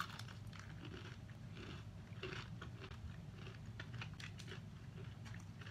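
Close-up, faint chewing and biting of crispy fried chicken (Jollibee Chickenjoy), with soft, irregular crunches over a steady low hum.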